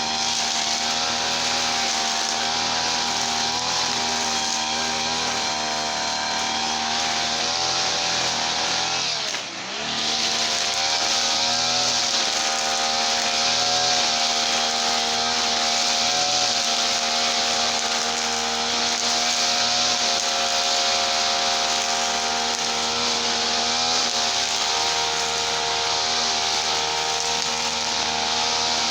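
Small petrol engine running steadily at high speed. About nine seconds in the revs drop sharply for under a second and then climb back to speed.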